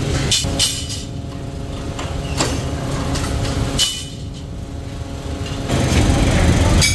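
Flywheel-driven mechanical power press running with a steady hum, with sharp ringing metal clanks as it cuts steel flat bar: two close together near the start, then single ones about two and a half and four seconds in. Louder, rougher machine noise takes over near the end.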